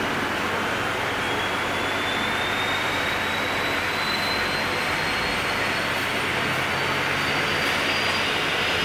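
Steady rushing mechanical noise with a faint high whine that rises slowly in pitch.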